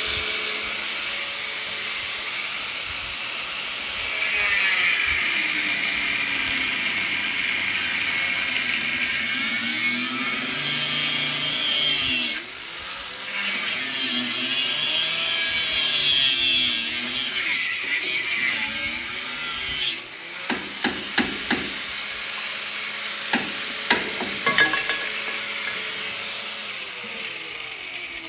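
Angle grinder with a cutoff wheel cutting through steel frame metal, a steady high grinding hiss whose pitch wavers as the wheel is loaded. It lets up briefly about twelve seconds in and stops about twenty seconds in, after which a few sharp knocks sound.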